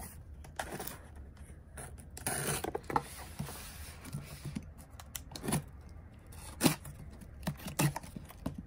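A cardboard shipping box being cut open and handled: a box cutter scraping along the packing tape, and the cardboard flaps rustling and tapping, in short, irregular scrapes and clicks.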